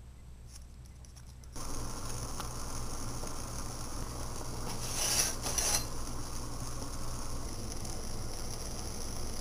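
Homemade soda-can alcohol stove burning, its ring of jets and centre flame giving a steady soft hiss that starts about a second and a half in. A short louder burst of noise comes a little past halfway.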